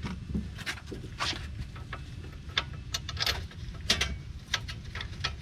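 Irregular light metal clicks and taps as a wheel hub assembly's mounting bolt is worked into place by hand.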